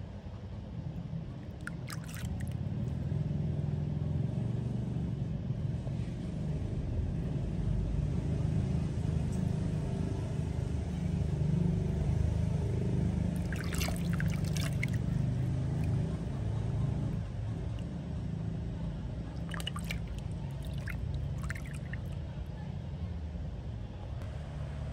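A steady low rumble, louder through the middle, under soft water sounds from a baby macaque being bathed by hand in a plastic basin. A few brief high-pitched sounds come about two, fourteen and twenty seconds in.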